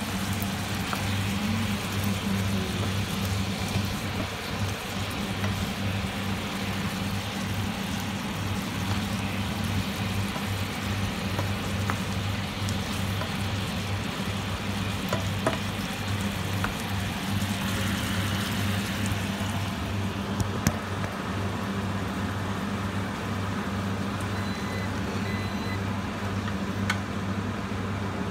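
Chicken adobo sizzling and simmering in a frying pan over a steady low electrical hum. The sizzle dies down about two-thirds of the way through, leaving the hum and a few light clicks.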